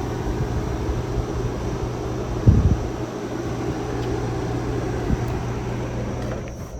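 1959 Welbilt Wall-Slim heat pump running with a steady low hum of its fan and compressor, a single thump about two and a half seconds in, and the sound dropping away near the end.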